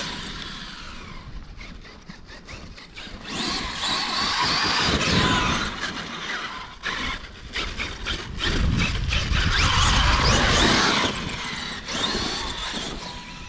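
Traxxas X-Maxx RC monster truck's brushless electric motor and geared drivetrain whining as it drives, the pitch gliding up and down with speed over tire noise. It gets loud twice, once about three seconds in and again about eight seconds in, as the truck accelerates or passes close.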